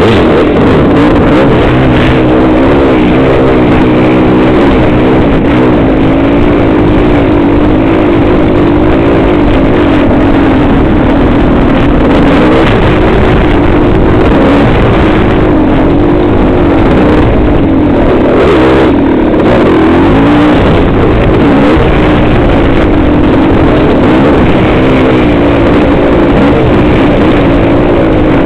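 Dirt bike engine running loud and close to the microphone, its pitch rising and falling as the throttle is worked over rough trail.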